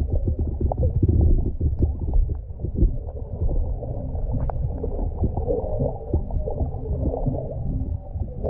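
Underwater sound picked up by a submerged camera: a muffled low rumble of moving water with many scattered sharp clicks and crackles.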